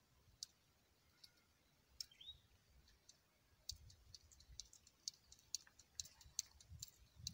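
Faint, irregular high clicks over near silence, sparse at first and coming several times a second from about halfway in, with one brief rising chirp about two seconds in.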